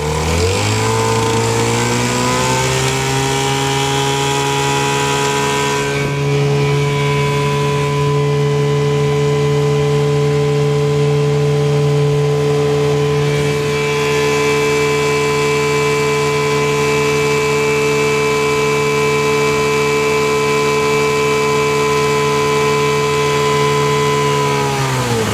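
6 hp Evinrude outboard motor opened up to full throttle, its pitch climbing over the first second or two, then running steady at full speed, and throttled back near the end.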